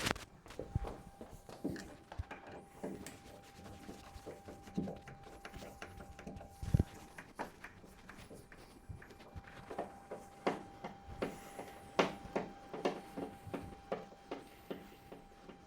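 Crosshead screwdriver undoing screws from a bed's board, with irregular small clicks, taps and handling knocks and one louder thump about seven seconds in. A faint steady tone hums underneath.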